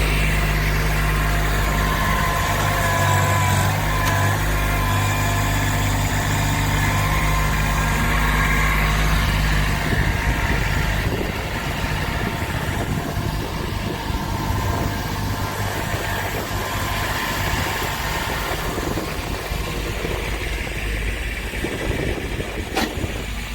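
Kubota B7500 compact tractor's three-cylinder diesel engine running steadily with a high whine over it, then settling to a rougher, slightly quieter run about ten seconds in, while scooping and loading dirt. A couple of sharp clicks come near the end.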